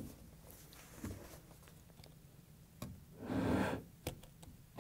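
Liquid poured from a large plastic jug into a glass, a short glugging pour about three seconds in, with light clicks and knocks of the plastic jug being handled.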